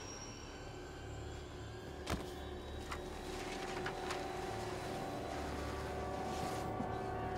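Fight sound effects over a low, steady rumble that slowly grows louder: a few sharp blows land about two, three and four seconds in as the fighters scuffle on the floor.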